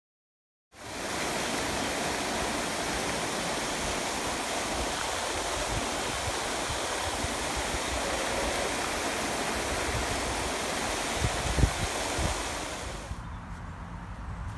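Steady, loud rush of flowing water beside a sea lion pool, starting abruptly about a second in and dropping away near the end to a quieter outdoor background.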